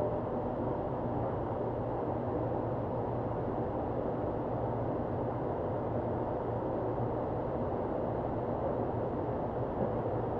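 Steady hiss and low electrical hum of a DC TIG welding arc running on titanium inside an argon-filled inert gas chamber, the torch used without its ceramic cup.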